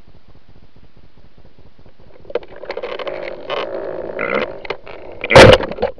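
Water moving around a waterproof camera housing underwater, first as a faint fast ticking, then from about two seconds in as bubbling, crackling and rushing. A loud whooshing burst of water comes near the end.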